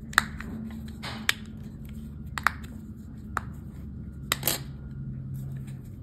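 Plastic housing and battery holder of a Saab 9-3 key fob being pressed and snapped together by hand: several sharp clicks about a second apart, with brief scraping of plastic in between.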